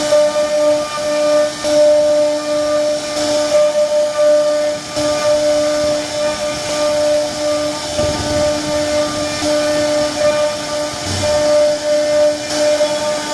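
CNC router spindle whining at a steady pitch while its small bit carves a relief pattern into a wooden panel, with the hiss of the cut through the wood.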